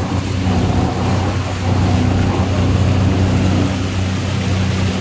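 Sea-Doo GTX 230 personal watercraft running steadily at speed, its three-cylinder Rotax engine droning evenly over the rush of water from the hull and wake.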